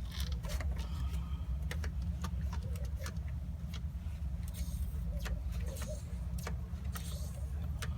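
Truck diesel engine idling steadily with a low rumble, with irregular sharp clicks and ticks over it.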